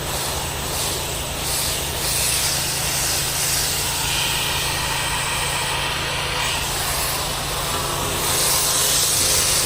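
Pressure washer engine running steadily while the spray hisses against a stucco wall, the hiss swelling and easing as the spray moves. The rig is downstreaming a sodium hypochlorite soft-wash mix onto algae buildup.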